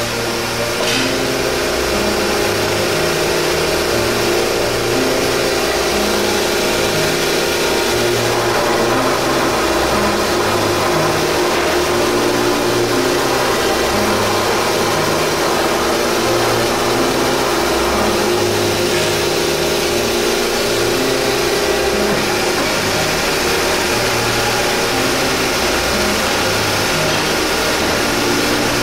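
Circular saw cutting machine running and sawing through a metal angle bracket: a steady mechanical running sound with a held tone that drops away about three-quarters of the way through.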